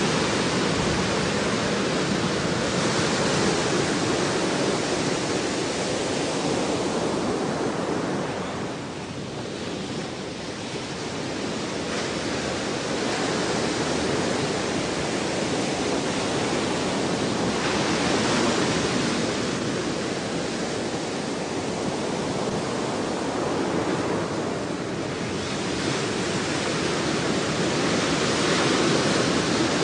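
Ocean surf: a steady rush of waves that swells and eases every few seconds as waves break and wash in.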